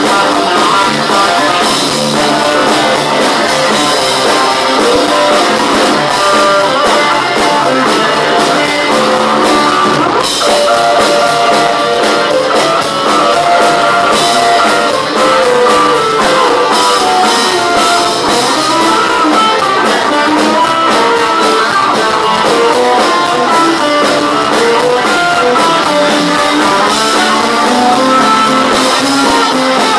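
A live blues-rock band plays loud and steady: electric guitars over bass and drum kit, with the lead lines bending up and down in pitch.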